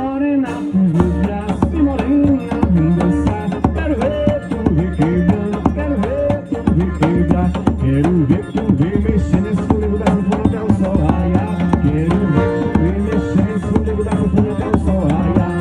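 Forró music played by a band: a melody with sliding notes over a steady, pulsing drum beat.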